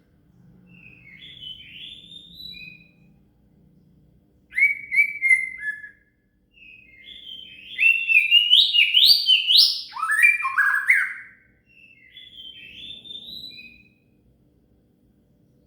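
White-rumped shama (murai batu) song: four phrases of clear whistled and chattering notes, the loudest in the middle a quick run of notes stepping upward, then lower falling whistles.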